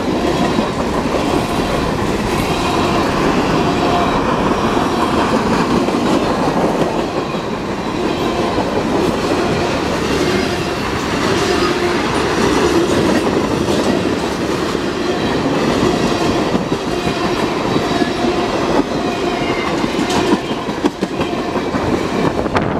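Freight cars of a Canadian National mixed freight train rolling past at close range (covered hoppers, tank cars, then autoracks): a steady, loud rumble of steel wheels on the rails, with faint thin high tones riding over it.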